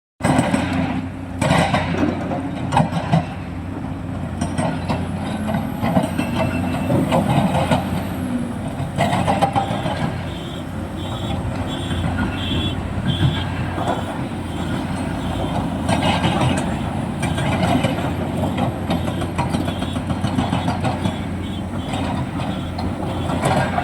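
Excavator's diesel engine working steadily under load, with scattered clanks and knocks. About ten seconds in comes a run of short high beeps for a few seconds.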